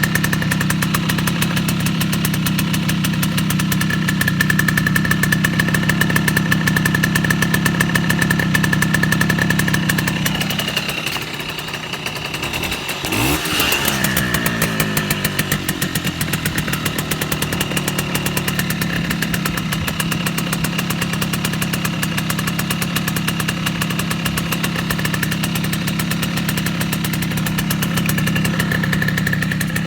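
Motorcycle horn fitted with a homemade foam horn flare, sounding continuously as a steady buzzing drone. About eleven seconds in, the sound dips and its tone wavers for a few seconds, then settles back to the same drone.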